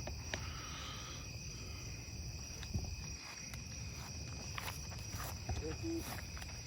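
A steady chorus of night insects, two constant high-pitched tones over a low outdoor hum, with a few faint clicks and knocks.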